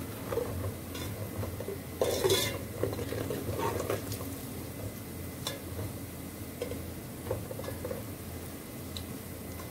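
A metal spoon stirring and scraping onions frying in oil in a metal pot, with clinks against the pot's side. It is loudest about two seconds in. A steady low hum runs underneath.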